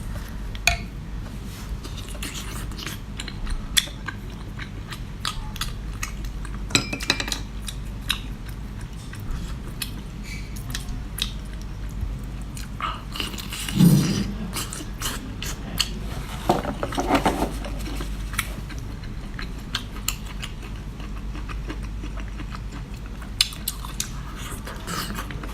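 Close-up chewing and biting of seafood, with many short scattered clicks of utensils and dishes and one louder, lower sound a little past halfway.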